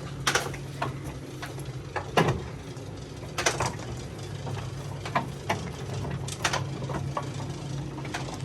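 Crater lift descending: its winch drive gives a steady low hum, with irregular clicks and knocks from the lift's wheels and cage as it moves down the narrow shaft.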